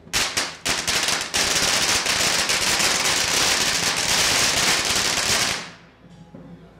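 A string of firecrackers going off: a few separate cracks, then a dense, rapid crackle for about four seconds that stops a little after five seconds in.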